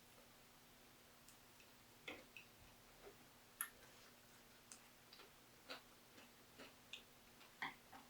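Faint, short clicks and ticks, about a dozen at uneven intervals, starting about two seconds in.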